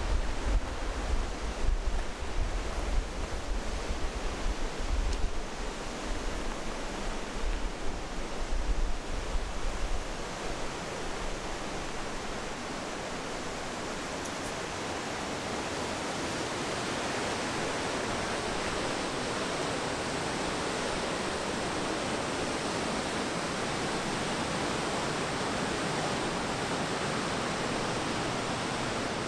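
Steady rush of a whitewater mountain river running through a rocky gorge. For the first third, wind buffeting the microphone adds a gusty rumble that then drops away, leaving the even rush of the water.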